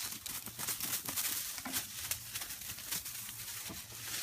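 Garden ivy and shrub leaves rustling, with twigs crackling in quick, irregular bursts.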